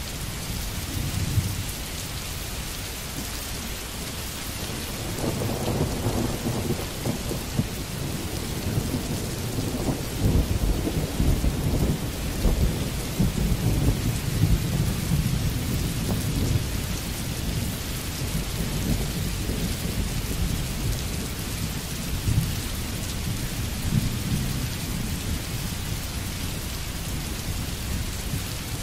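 Steady heavy rain hissing, with a long roll of thunder rumbling in from about five seconds in, swelling and fading over some ten seconds, and weaker rumbles later.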